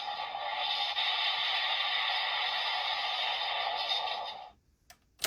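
Electronic sound effect from a PDX Laser Raise Riser (Kamen Rider Geats transformation toy) playing through its small built-in speaker: a steady, noisy, humming effect that cuts off about four and a half seconds in, followed by a short click.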